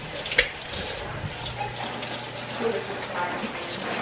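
Kitchen faucet running in a stainless steel sink while raw chicken pieces are rinsed by hand under the stream. A single sharp knock comes about half a second in.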